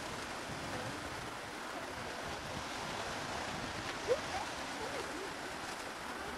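Steam locomotive 80079, a BR Standard Class 4 2-6-4 tank engine, letting off steam while standing: a steady rushing hiss, with one sharp knock about four seconds in.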